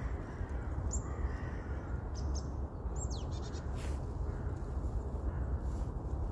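Tits giving a few short, high, thin calls, some sliding down in pitch, over a steady low rumble.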